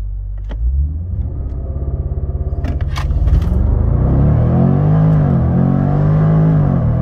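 Jaguar F-Pace SVR's supercharged 5.0-litre V8 under a launch-control start, heard from inside the cabin. The revs rise, and about three seconds in the car pulls away hard. The engine note then climbs and dips twice through quick upshifts.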